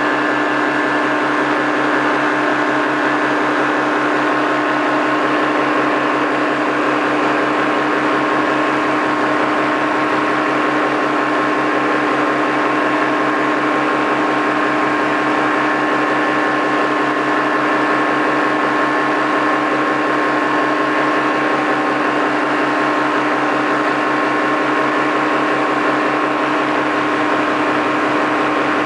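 Paramotor engine and propeller running steadily at cruise power, a constant droning hum with no change in pitch.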